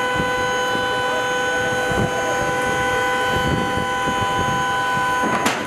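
Steady turbine whine from a parked military cargo aircraft: several pure tones held at an unchanging pitch over a low wind rumble. A sharp click comes near the end.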